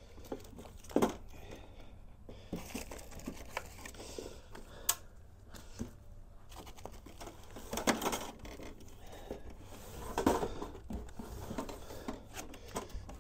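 Handling noise from unpacking: rustling and crinkling of packaging with scattered light knocks and clicks as foam inserts and parts of an aluminium carrying case are moved, a few louder clatters among them.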